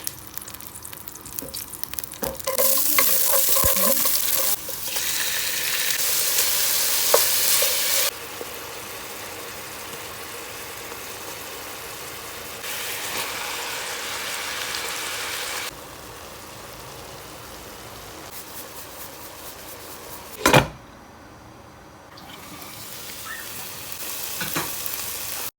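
Chicken and spinach frying in a pan, a steady sizzle with stirring and a few light clicks of a utensil. The sizzle jumps louder and quieter several times and is loudest for a few seconds early in the stretch, and a single sharp knock sounds about twenty seconds in.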